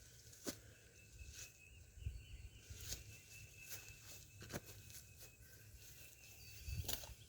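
A few scattered, fairly faint sharp knocks, spaced a second or two apart, over a steady high-pitched chirping in the background.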